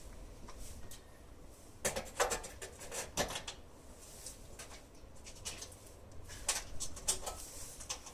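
Door lock hardware being handled: bursts of sharp clicks and light metallic knocks, a cluster about two seconds in and another near the end.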